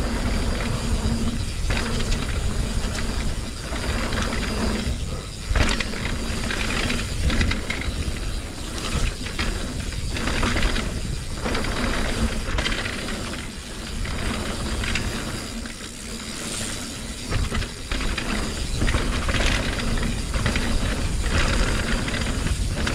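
Steel hardtail mountain bike (2020 Norco Torrent HT S2) riding down a rough trail: a steady low rumble from the tyres and the run, broken by frequent uneven knocks and clattering rattles as the rigid rear end takes the bumps.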